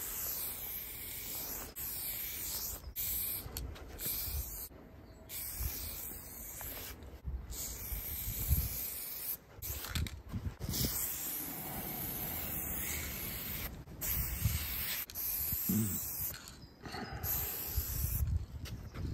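Aerosol spray-paint can hissing in long strokes with short breaks between them, as the sketch lines of graffiti letters are sprayed onto a wall.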